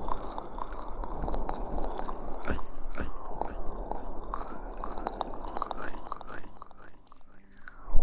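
Aloe vera gel being rubbed and massaged over an ear-shaped microphone: continuous sticky, wet squelching with many small clicks.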